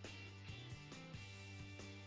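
Background music with a steady beat and held notes over a bass line.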